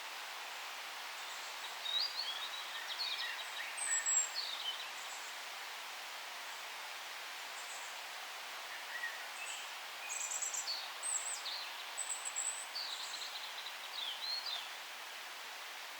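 Small songbirds chirping and trilling in two spells, about two seconds in and again from about ten seconds, over a steady hiss of forest background.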